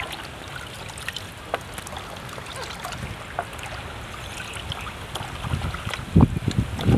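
Water sloshing and dripping as a hand stirs sliced vegetables in a plastic basin and lifts handfuls out, with scattered small splashes. Heavier low thumps come near the end.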